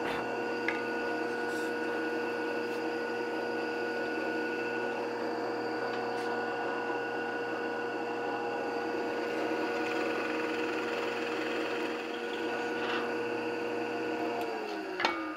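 Drill press motor running steadily while its bit bores into a varnished wooden board. Near the end the motor's hum falls in pitch as it spins down.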